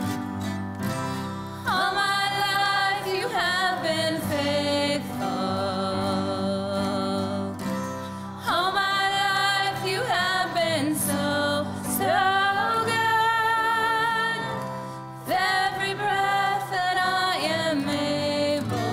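Women singing a worship song with acoustic guitar accompaniment, in sung phrases separated by short breaths.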